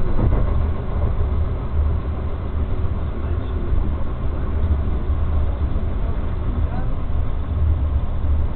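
Tram running along grassed track, heard from inside the car: a steady low rumble of wheels and running gear with a constant hiss over it.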